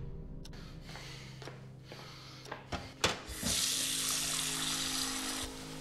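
Tap water running into a drinking glass for about two seconds, after a few light knocks, cutting off suddenly near the end.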